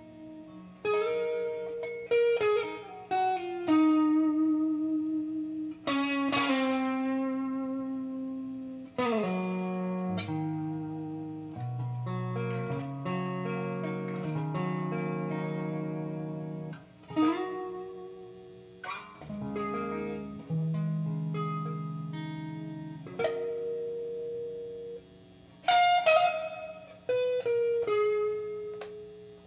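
Electric guitar played solo: slow single-note lines and low notes, each left to ring, with several string bends that slide the pitch up or down.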